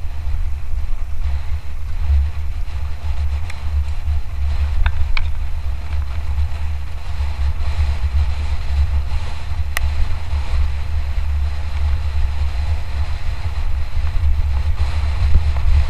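Wind rushing over the microphone during a fast mountain-bike descent: a loud, steady low rumble. A few sharp clicks and rattles from the bike come about five seconds in and again near ten seconds.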